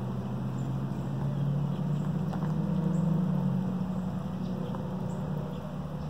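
Low engine drone that swells to its loudest around the middle and then eases off, as of a motor vehicle passing at a distance.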